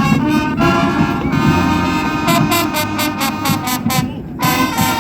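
Brass band music: a run of short, quickly repeated notes, a brief break, then a held chord near the end.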